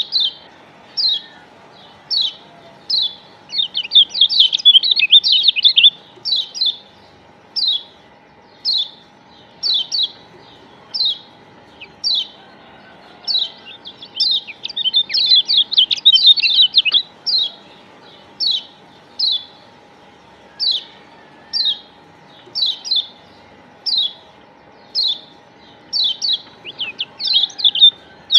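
Lombok yellow white-eye (kecial kuning, a Zosterops white-eye) calling: sharp high chips about once a second, twice breaking into a rapid chattering trill a couple of seconds long, with another trill starting near the end.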